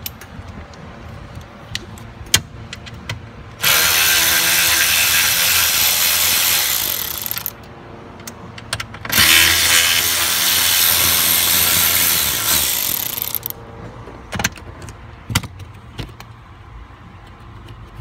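Cordless drill-driver spinning a screw in a pickup's seat frame, in two runs of about four seconds each that wind down at the end. Light clicks and knocks come between the runs.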